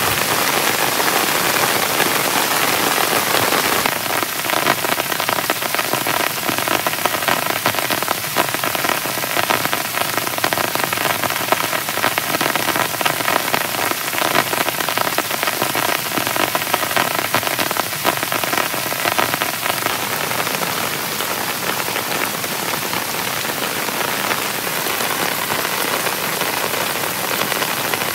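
Heavy rain falling steadily on a tent: a dense, unbroken patter of drops that grows a little more uneven about four seconds in.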